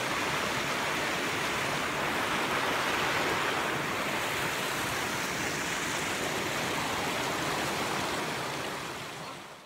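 Rushing mountain creek: a steady noise of white water tumbling over boulders, fading out near the end.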